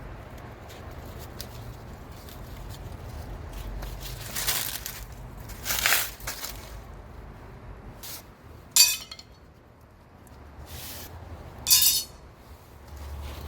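Lengths of aluminium air-conditioner refrigerant pipe clinking and rattling as they are handled, in four short bursts with quieter handling noise between them.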